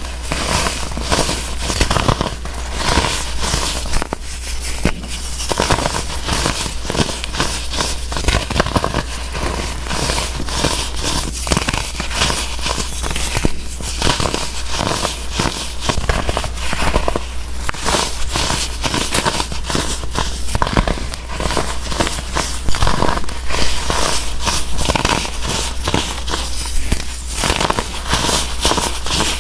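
Crunchy blocks of dried baking soda being crushed and crumbled, a dense, continuous crackling and crunching of many small snaps.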